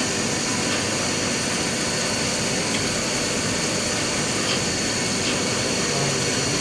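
Haas CNC mill running a finishing pass on aluminum: steady machining noise with a high, steady spindle whine.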